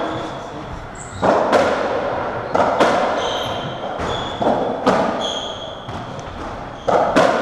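UK racketball rally on a squash court: the ball cracking off racket strings and the walls in sharp hits, mostly in close pairs, each echoing round the court. Short high squeaks from court shoes on the wooden floor fall between the hits.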